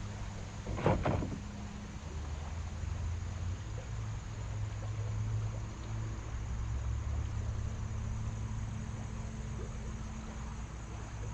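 Low steady engine hum, its pitch shifting slightly, over the even hiss of running river water. A short sharp sound comes about a second in.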